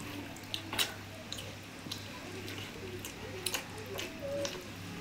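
Eating by hand: fingers squishing and mixing wet rice and curry on steel plates, with chewing and scattered small sharp clicks and ticks.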